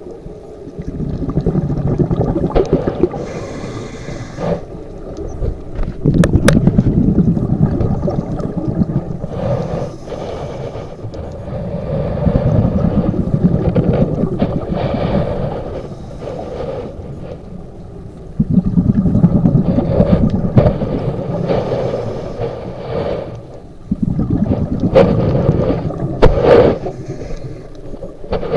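Scuba regulator breathing heard through an underwater camera: exhaled air bubbles rumbling and gurgling, in about five long rushes a few seconds apart, with quieter inhalations between.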